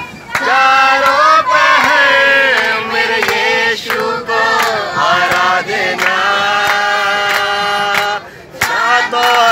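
A group of boys, girls and adults singing a song together in unison, with steady hand clapping about twice a second. The singing breaks off briefly near the end, then starts again.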